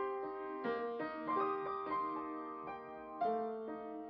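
Background piano music: slow, gentle chords and notes.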